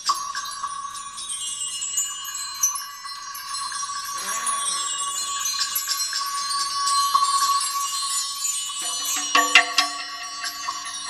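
Mark tree (bar chimes) swept over and over: dense shimmering metallic tinkling over a steady ringing tone. Lower ringing tones join about nine seconds in, with a few louder struck hits.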